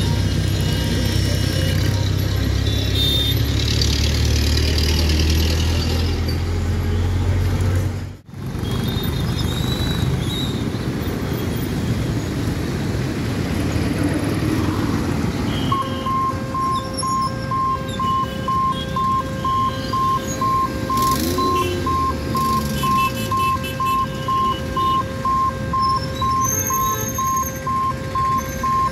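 Road traffic at a railway level crossing, engines and tyres passing. About halfway in, the crossing's electric warning alarm starts: an even beeping tone, about two beeps a second, signalling that the boom barriers are about to close.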